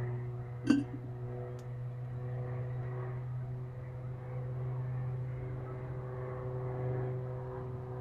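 A steady low mechanical hum with a few steady tones above it, and one sharp click or knock less than a second in.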